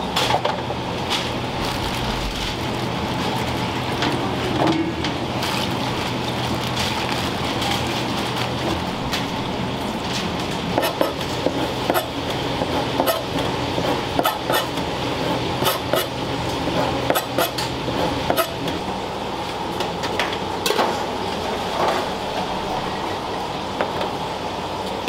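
Commercial kitchen work: metal utensils clinking and tapping against pans and dishes over a steady hiss and hum, with a run of sharp, quick clinks around the middle.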